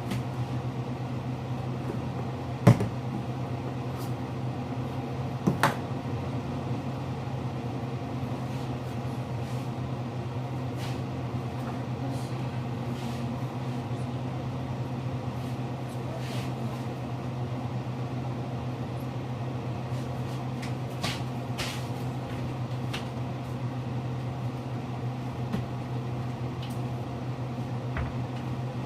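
Steady low kitchen hum with a few sharp clicks and knocks of cupboards and items being handled, the loudest about three seconds in.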